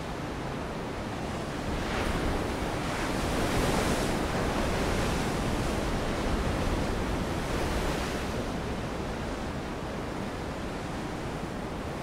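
Ocean surf: a steady rush of waves breaking, swelling about two seconds in and easing off again after about eight seconds.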